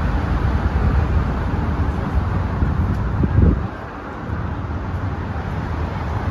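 Steady rumble of road traffic with wind buffeting the microphone. A stronger gust comes about three and a half seconds in, then it eases briefly.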